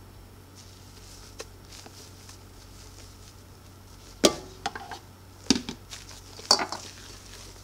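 Silicone spatula knocking and scraping against a stainless steel mixing bowl while whipped egg whites are folded into almond-flour batter. Quiet at first, then several sharp knocks in the second half.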